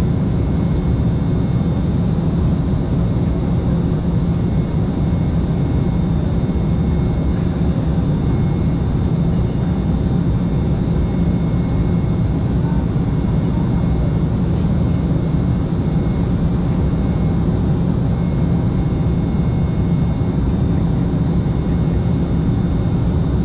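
Steady drone of an Embraer 195LR's twin GE CF34-10E turbofans and the rushing airflow, heard inside the passenger cabin in flight: a deep, even roar with a faint high whine on top.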